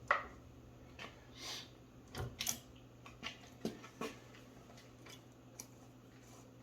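Scattered light clicks and knocks, about eight in all at irregular intervals, the sharpest just after the start, over a faint steady hum.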